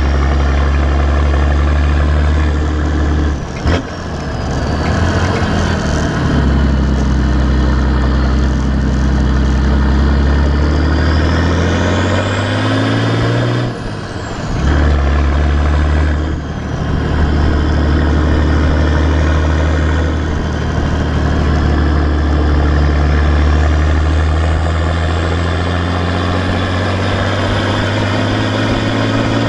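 Nissan TD42T turbo-diesel straight-six heard at the tailpipe of its 3-inch exhaust with one small muffler, while driving on the road. The note rises in pitch as it accelerates and dips briefly three times, with a faint high whistle rising and falling with the revs.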